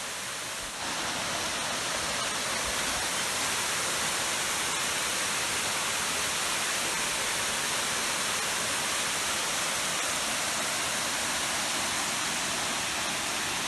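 Salto Curet waterfall rushing steadily: an even, full hiss of falling water that gets slightly louder about a second in.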